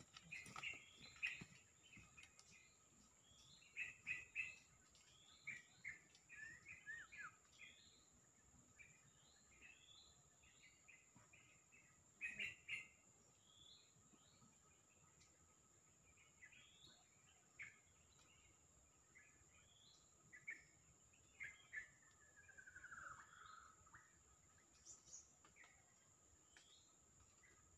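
White-rumped shama (murai batu) giving short chirps and brief song phrases, with one longer falling slurred note a little after the twenty-second mark. A faint steady high-pitched hum runs underneath.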